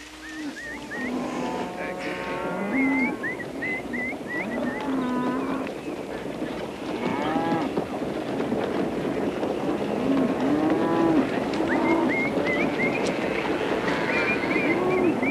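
A herd of cattle mooing, many long overlapping calls over a steady noisy background.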